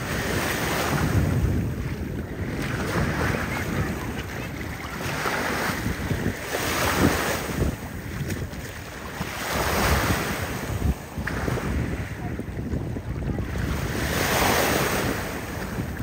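Small sea waves washing in, swelling and fading every few seconds, with wind buffeting the microphone.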